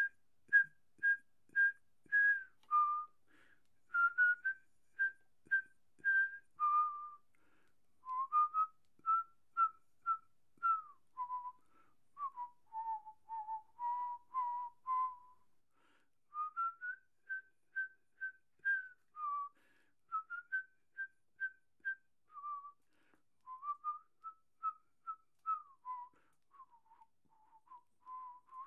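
A person whistling a slow, wandering tune in short separate notes, about two a second, grouped into phrases with brief pauses. Nothing else is heard between the notes.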